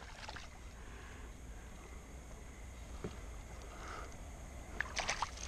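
Faint low wind rumble on the microphone, with a brief cluster of sharp clicks and knocks about five seconds in.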